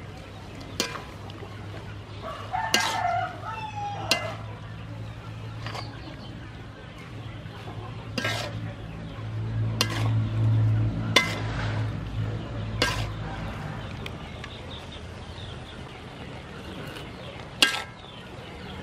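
Metal spatula clanking and scraping against a metal wok as a stir-fry of chives, tofu, shrimp and pork is tossed, with sharp clanks every second or two. A rooster crows about three seconds in, and a low hum swells briefly around the middle.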